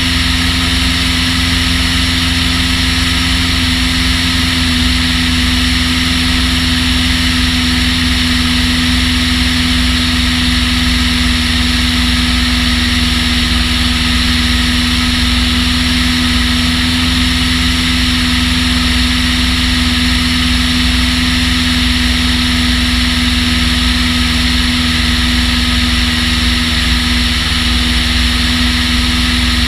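Long-EZ's pusher piston engine and propeller running at a steady setting: a loud, constant drone with one strong tone, over a steady hiss.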